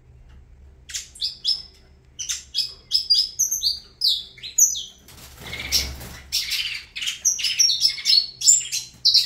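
Saffron finch singing: after about a second of quiet, a fast run of short, high, sweeping chirps and trills, with a brief noisy rush about five seconds in.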